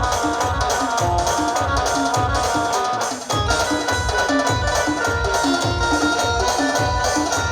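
Band playing an instrumental passage of a folk song: a sustained melody over a steady drum beat of about two hits a second, with a brief break about three seconds in.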